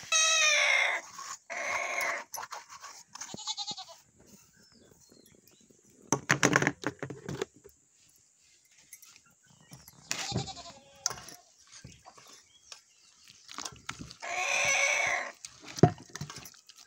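Goats bleating several times, with quavering calls that are loudest at the start and again near the end.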